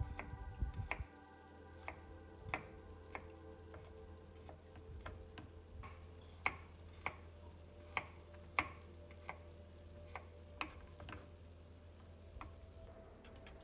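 Chef's knife slicing garlic cloves on a wooden cutting board: sharp taps as the blade goes through each clove and hits the wood, about one or two a second at an uneven pace.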